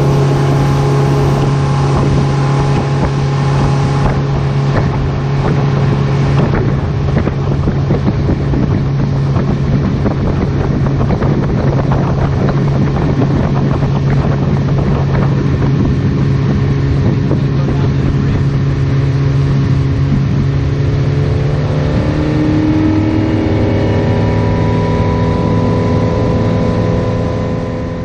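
A boat's outboard motor running at steady speed under heavy wind noise on the microphone. The engine note shifts lower about three-quarters of the way through.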